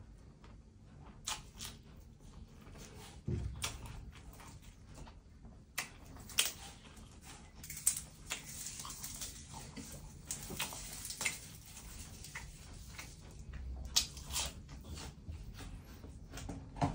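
Close-up eating sounds: a mouthful of spicy shrimp larb wrapped in fresh lettuce being chewed, with irregular wet smacks and clicks of the mouth.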